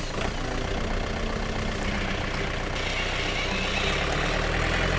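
Heavy vehicle engine running steadily with a fast low throb, the bulldozer's engine as it moves in to load dirt, swelling a little louder near the end.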